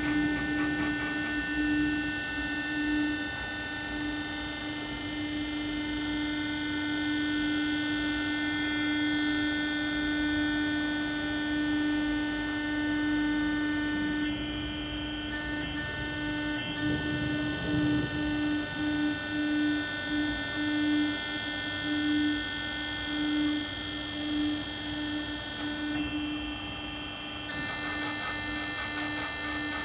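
Electric-motor hydraulic power unit of a monoser PB15-R3 concrete placing boom running, a steady hum with a thin high whine above it. The hum wavers and pulses in the second half.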